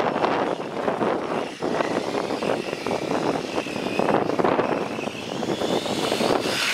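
1/10-scale RC car running on asphalt: tyres rolling on the rough road with a motor whine that glides up and down in pitch as the car speeds up and slows.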